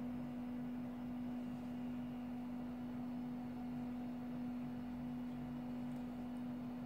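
A steady low hum: one held tone with fainter overtones above it, unchanging throughout.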